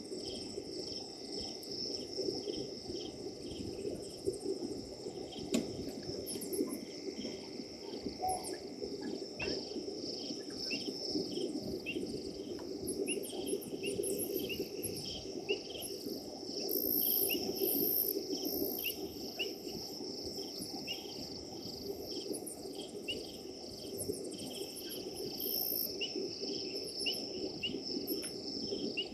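Night chorus of crickets and other insects: a steady high trill with many short chirps repeating over it. A burst of louder, very high-pitched chirping comes about two-thirds of the way through.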